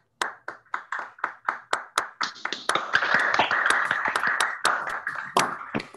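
Applause heard over a video call at the end of a talk. It starts as separate claps about four a second, thickens as more people join in, and thins out near the end.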